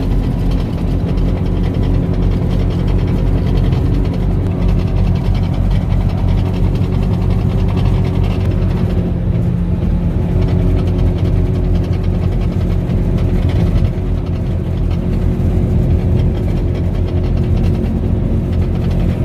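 Bajaj Qute's single-cylinder engine running at idle with a loud metal-on-metal knocking noise. The owner traces the noise to a badly worn support.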